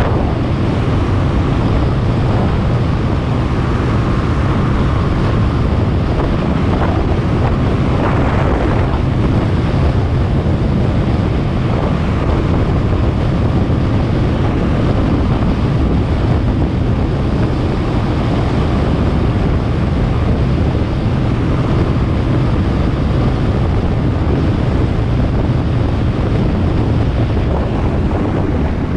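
Steady wind rumble buffeting the microphone of a camera moving at road speed, with road noise underneath.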